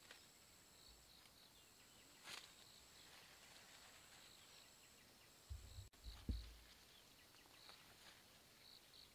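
Quiet rural ambience: faint high chirps repeating over a thin, steady high whine that comes and goes. A few soft clicks, and a cluster of low thumps about six seconds in.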